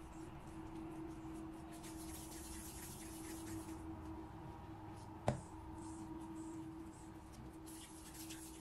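Faint soft rubbing of hands rolling pieces of yeast dough into balls against a silicone pastry mat, over a steady low hum. One sharp tap about five seconds in.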